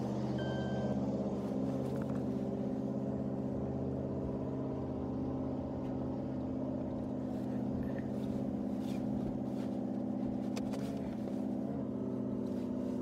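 An engine running steadily at idle, its pitch wobbling briefly near the end.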